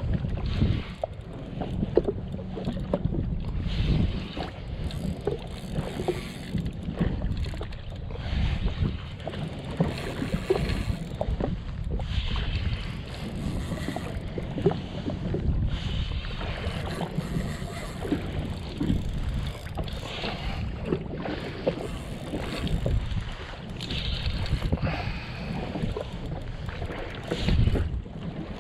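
Wind buffeting the microphone while water laps and slaps against the hull of a jet ski drifting at rest, with scattered small knocks and clicks.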